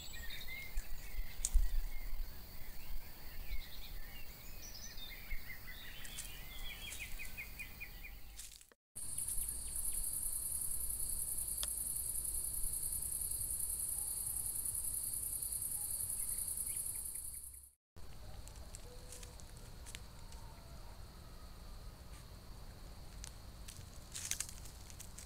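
Night-time chorus of crickets and other insects, in three clips cut together. The middle clip holds a loud, steady high trill; the first and last hold fainter chirping and short pulsed trills.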